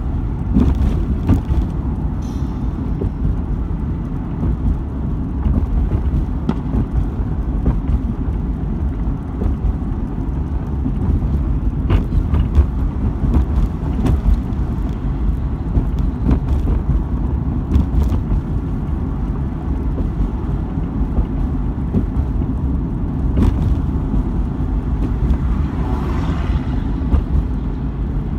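Car driving on a road, heard from inside the cabin: a steady low rumble of engine and tyres, with a few faint knocks.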